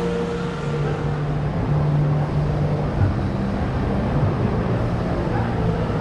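Indoor shopping-mall ambience: a steady low hum and rumble with a faint wash of background sound.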